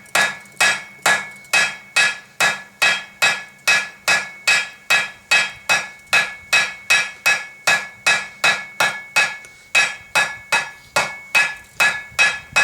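Blacksmith's hammer striking a hot 1/4-inch bar on an anvil to draw out a taper: a steady rhythm of about three blows a second, each with a ringing note from the anvil.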